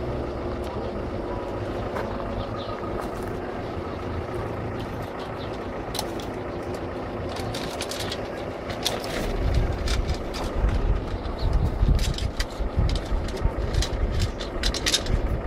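A vehicle engine running steadily close by, with scattered small metallic clicks and taps from work on a road bicycle's chain. From about nine seconds in, an uneven low buffeting rumble on the microphone.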